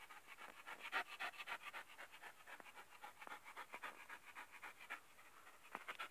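A dog panting faintly in quick, short breaths.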